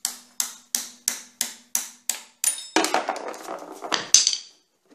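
Hammer tapping a cotter pin through the axle nut on a Dana 30 front-axle hub. About eight quick, even metal taps come at roughly three a second, each ringing briefly. They are followed by a longer jumble of metal clattering with a sharp clink near the end.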